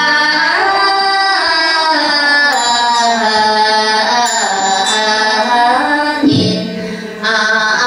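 Devotional chanting: long, slowly gliding sung notes in one drawn-out phrase, a short break about six seconds in, then the chant resumes near the end.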